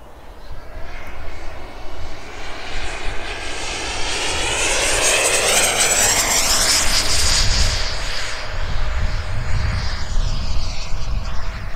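Electric ducted-fan RC jet, a Sebart mini Avanti S with a 90 mm WeMoTec Midi Evo fan, making a fast low pass: its high whine swells as it approaches, peaks about six seconds in, then drops in pitch as it flies away.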